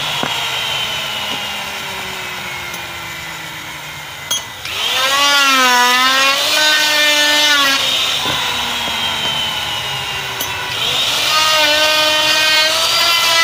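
Handheld electric router running with a high whine while rounding the square head of a wooden sickle handle. Its pitch slowly falls over the first few seconds, then after a click about four seconds in it gets louder, its pitch dipping and wavering as the cutter bites into the wood, and it does so again near the end.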